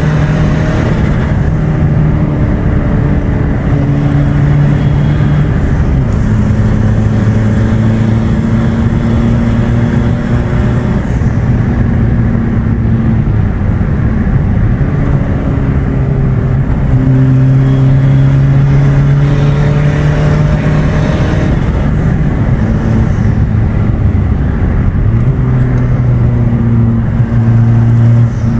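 Peugeot 206 2.0 HDi four-cylinder turbodiesel, tuned with a TD04 turbo, a decat and a silencer delete, running under load while being driven hard. The engine note holds at steady pitches and changes pitch several times, with road noise underneath.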